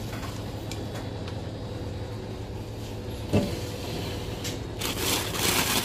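A steady low mechanical hum, with a short burst of rustling noise near the end.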